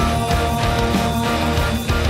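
Heavy metal band playing loud and steady: drum hits under long held notes.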